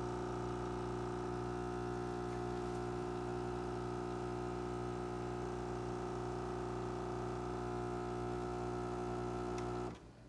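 Automatic bean-to-cup coffee machine humming steadily as it brews a cup, then cutting off abruptly near the end as the brew finishes.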